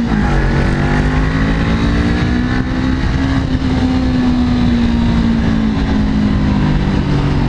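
Honda CBR motorcycle under way, heard from inside the rider's helmet, through an exhaust whose dB killer has been drilled with holes to make it louder. The engine note drops sharply just at the start, then holds nearly steady.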